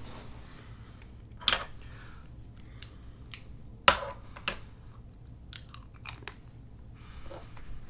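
Sharp plastic clicks and mouth sounds as a SOMA oral appliance (a dental splint) is pushed onto the teeth and snapped into place: about seven clicks at irregular intervals, the loudest about four seconds in, over a faint steady low hum.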